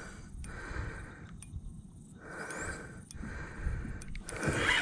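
A man breathing hard and fast from the effort of fighting a heavy channel catfish on rod and reel: a string of rushing breaths, about one a second, as he winds in the spinning reel.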